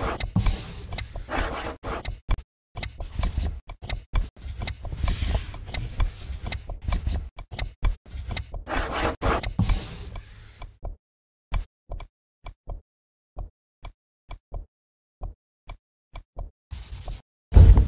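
Sampled drawing-class sounds cut into a stuttering collage: bursts of scratchy noise that start and stop every fraction of a second, then, from about two thirds of the way in, a run of separate sharp taps or clicks at uneven intervals.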